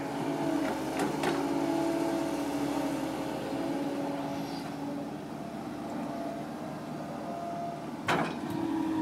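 Kobelco 135SR excavator's diesel engine running steadily under working load as the machine dumps and swings, with a couple of light clicks about a second in and a sharp knock near the end.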